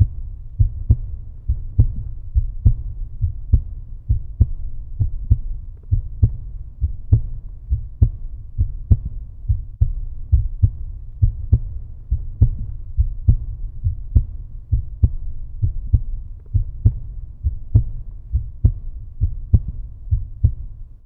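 Heartbeat sound: a steady, deep lub-dub of paired low thumps at about 68 beats a minute.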